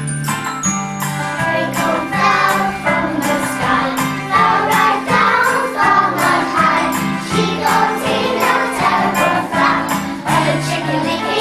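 Young children singing together along to recorded music with a steady beat and jingling percussion.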